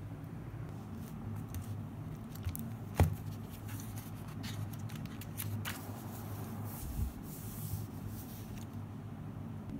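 Hands opening a notebook on a desk and smoothing its pages: paper rustling, with a sharp click about three seconds in and a soft thump about seven seconds in. A low hum runs underneath.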